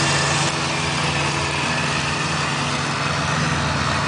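Ferris 72-inch zero-turn mower's 33 hp Caterpillar diesel engine running steadily while its three sets of blades cut tall, dry, tough grass. The sound dips a little about half a second in as the mower draws away.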